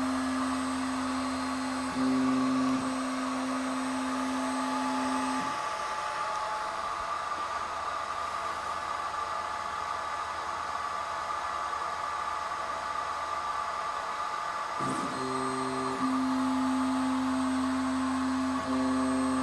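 AlgoLaser DIY Kit MK2 laser engraver framing its job: the stepper motors move the laser head with a steady whine that changes pitch at each corner. The whine stops for about ten seconds midway, then starts again after a short click, over a constant motor whir.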